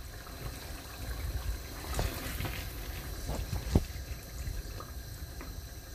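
Wooden spatula stirring thick tomato stew in a stainless steel pan: wet squelching and sloshing of the sauce, with a few short knocks of the spatula against the pan, the loudest a little past the middle.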